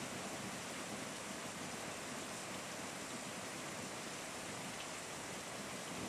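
Heavy rain falling steadily on garden trees and broad banana leaves: an even, unbroken hiss with no single drops or splashes standing out.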